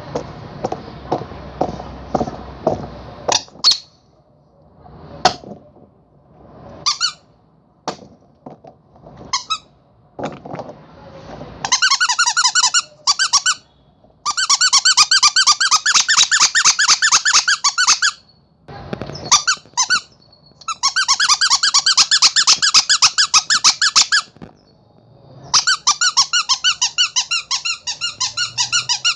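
Rubber squeaky toy squeezed again and again. After a rattly, clicking start there are a few separate squeaks, then long runs of fast squeaks, several a second, broken by short pauses.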